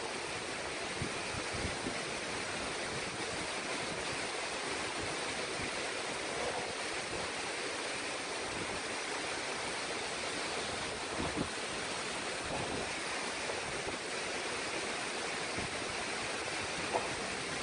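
Steady rushing noise of a cyclone's wind and heavy rain with surf breaking on the shore.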